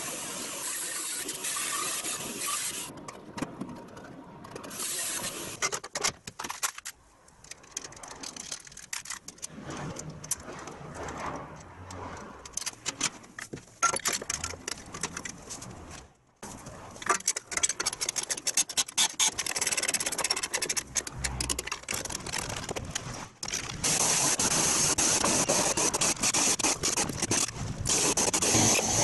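Workshop sounds of a stainless steel side bumper being fitted to a truck frame: scattered metal clinks, tool clicks and scraping. A steady hiss runs through the last few seconds.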